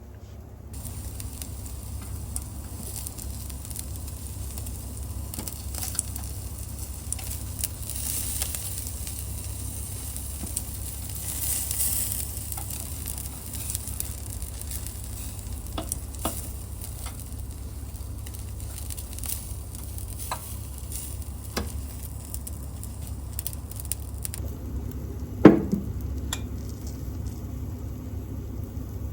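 Pork shoulder loin sizzling on an electric shichirin grill, with scattered pops, over a steady low hum. The sizzle starts about a second in and thins out near the end, and a single sharp, loud knock comes about 25 seconds in.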